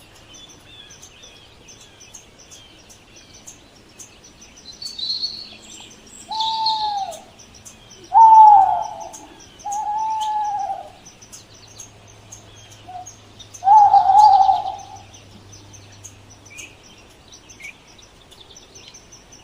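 An owl hooting four times, each hoot a short tone that arches and falls away at its end, a second or more apart. Behind the hoots run faint high chirps and ticks.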